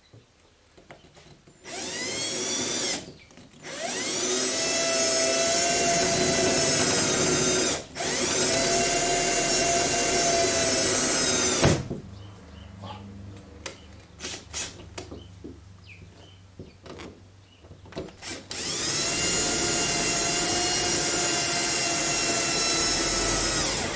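Cordless drill running in long bursts in sheet metal, spinning up at each start: a run of about ten seconds broken by two brief stops, then a few small clicks and knocks, then another long run near the end.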